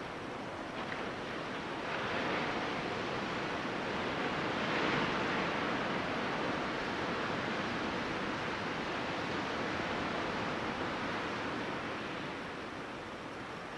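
Ocean surf washing onto a sandy beach, a steady rush that swells about two seconds in, is strongest around five seconds and eases off near the end.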